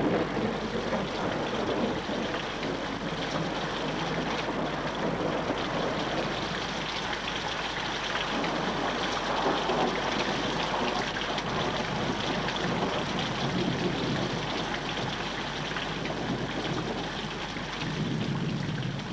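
Steady hiss of heavy rain pouring down in a storm.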